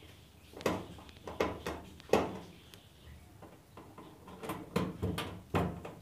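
Screwdriver clicking and scraping against the galvanised sheet-metal back panel of a Samsung washing machine while its screws are driven back in: sharp metallic clicks, a few in the first two seconds and a tighter cluster in the second half.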